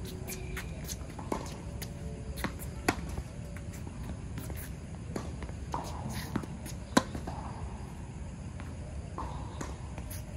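Tennis rally on a hard court: sharp pops of racket strings striking the ball and of the ball bouncing, spaced a second or more apart, the loudest about seven seconds in.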